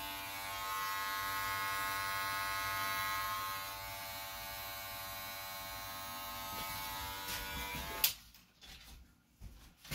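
Electric hair clippers running with a steady buzz as they trim around the brow and temple. The buzz stops with a sharp click about eight seconds in, and a few faint knocks follow.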